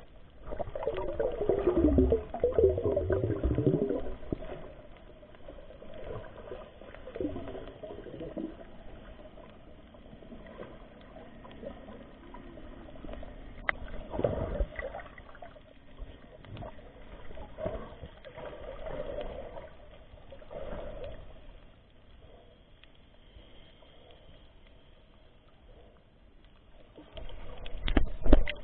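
Water moving around an underwater camera, in irregular swells of sound. It is loudest in the first few seconds, comes in weaker surges through the middle, and has a short louder burst near the end.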